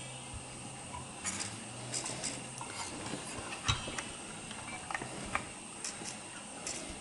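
Scattered light clicks and taps of small plastic and metal parts and wiring being handled while an RC loader is taken apart. A faint low hum runs under the first few seconds.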